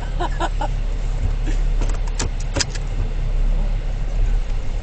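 Off-road vehicle driving: a steady low rumble of engine and road noise, with a few short rattles and clicks in the first three seconds.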